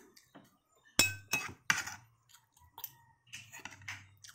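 Metal spoon clinking and scraping against a plate of rice, several sharp clinks with a short ring, the loudest about a second in.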